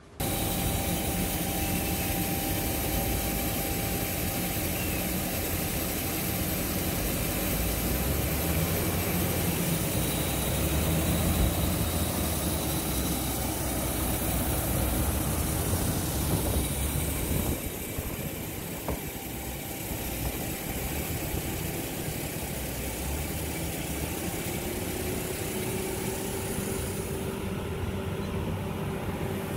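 Wheel loader's diesel engine running steadily, with a change in the sound about 17 seconds in.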